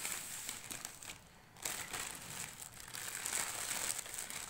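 Foil food pouch and its plastic carrier bag crinkling as they are handled, with a brief lull about a second in.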